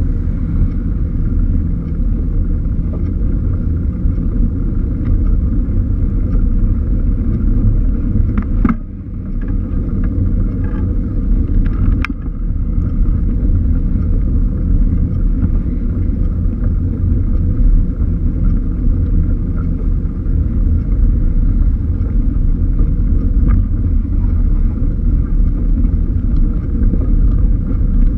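Steady low wind rumble on a bike-mounted GoPro microphone while cycling, with road noise underneath. It dips briefly about nine seconds in, and a couple of sharp clicks come around then and again about three seconds later.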